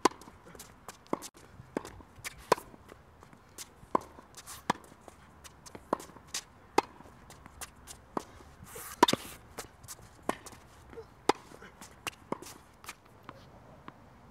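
Tennis balls struck by rackets and bouncing on a hard court during a baseline rally: a run of sharp pops at irregular spacing, about one to two a second. Near the end the pops die away.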